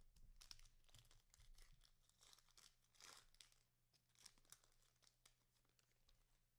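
Faint tearing and crinkling of trading-card pack wrappers being ripped open, in several short rasps.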